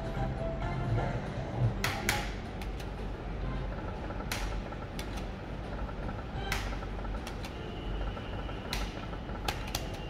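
Video slot machine in play: the win jingle dies away in the first second or two, then a sharp click-swish comes about every two seconds as the reels are spun again and again, over steady gaming-hall noise.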